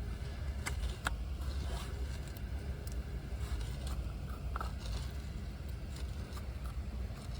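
BMW S65 4.0-litre V8 running at a steady idle with freshly cleaned throttle bodies and lubricated throttle linkages. A few light clicks and scrapes come about a second in and again near the middle.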